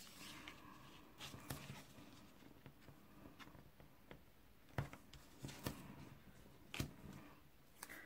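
Faint handling sounds of cardstock and double-sided adhesive tape: scattered small clicks and ticks as tape strips are pulled off the roll, pressed down and their backing liner peeled away.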